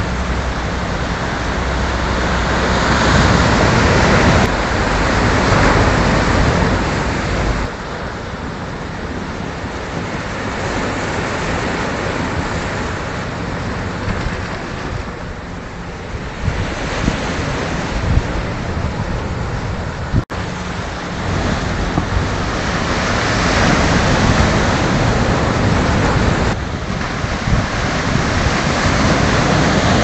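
Rough sea surf breaking and washing onto the shore, swelling and easing in surges, with wind rumbling on the microphone. The sound cuts out for an instant about twenty seconds in.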